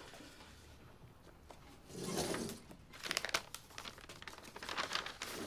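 Handling noise: soft rustling and a few light clicks, starting about two seconds in after a quiet start.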